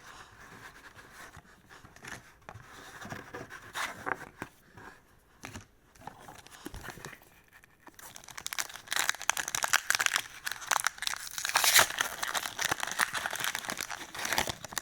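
Foil wrapper of a Pokémon TCG booster pack being torn open and crinkled, a dense crackling from about eight seconds in, loudest near the end, after some light handling clicks.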